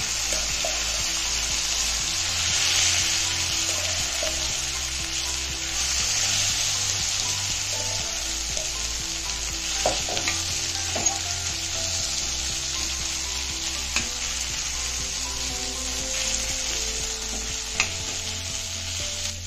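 Boiled baby potato slices, coated in mustard paste and spices, sizzling in hot oil on an iron tawa with a steady hiss. A spatula stirs them and taps sharply against the pan a few times.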